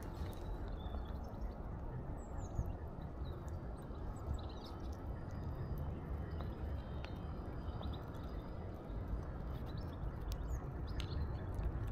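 Steady low outdoor rumble with faint, short small-bird chirps high above it and a few scattered light taps or clicks.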